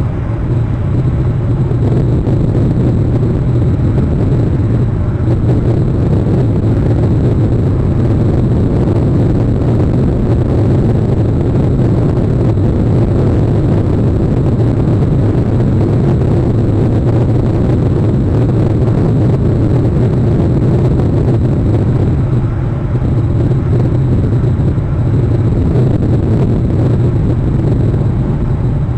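Steady, loud rushing of wind on an outdoor nest-camera microphone, heaviest in the low range, with a brief easing a little past the middle.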